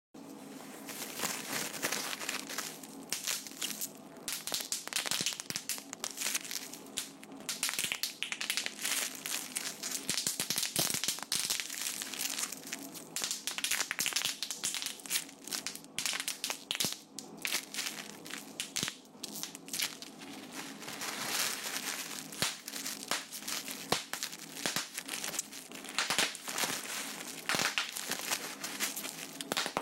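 Continuous dense crinkling and crackling, many small sharp clicks running together without a break, over a faint steady low hum.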